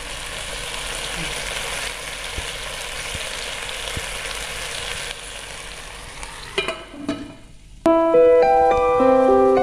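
Whole chicken sizzling in its juices inside a Black & Decker rice cooker, a steady frying hiss. About two-thirds of the way in, the hiss stops with a couple of short clatters as the lid goes on, and piano music begins near the end.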